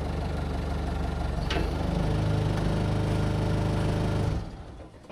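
An engine running steadily; it gets louder about two seconds in and stops shortly before the end.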